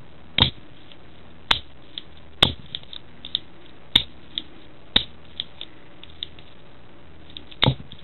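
Opened-up Shimano trigger shifter's indexing mechanism clicking as it is worked by hand: about six sharp, irregularly spaced clicks with fainter ticks between. The pawl is not catching reliably on the worn ratchet teeth.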